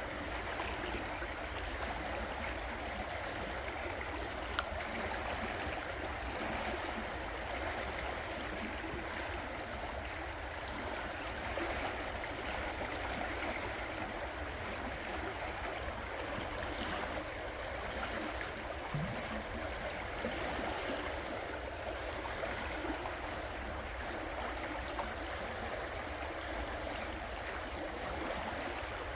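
River water flowing over rocks, a steady rushing and gurgling with a low rumble underneath.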